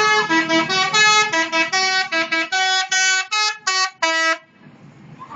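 Telolet horn of a Sindoro Satriamas bus playing a long, unusual melody of quick changing notes, which stops about four seconds in.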